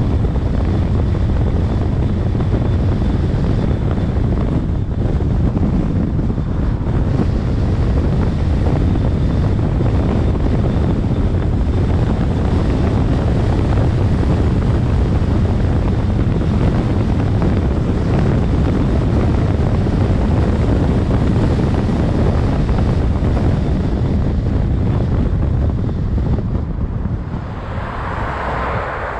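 Steady rumble of wind on the microphone and road noise from a moving car. It eases a little near the end as the car slows at an intersection.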